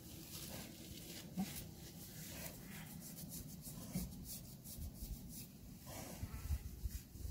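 A hand scratching a pig's bristly coat, a quiet rasping rub, with two brief low grunts from the contented pig about a second and a half and four seconds in.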